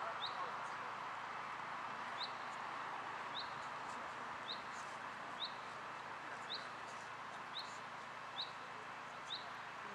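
Short, high, upward-sweeping chirps, repeated about once a second, over a steady outdoor hiss.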